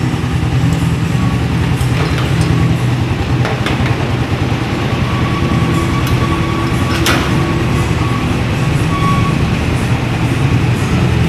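Suzuki Raider 150's single-cylinder four-stroke engine idling steadily on its freshly tuned carburettor, with a few faint clicks.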